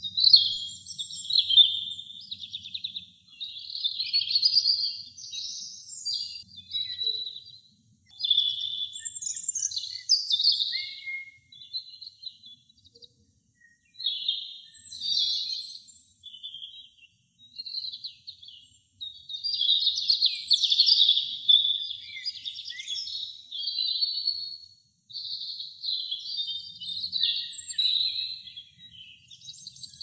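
European robin singing: a run of high, thin, warbling phrases, each a second or two long, separated by short pauses.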